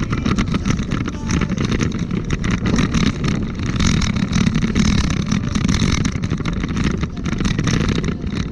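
Continuous rolling noise and wind buffeting on a handlebar-mounted camera while riding over paved path, with a steady low rumble and fast small rattles from the bumps.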